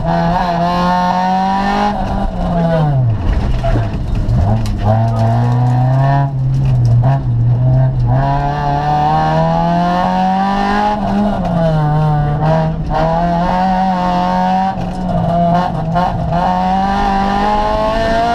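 Honda Civic rally car's four-cylinder engine, heard from inside the cabin, revving hard at speed. Its pitch falls sharply about three seconds in, then climbs again, with a few shorter dips later as the driver lifts and changes gear.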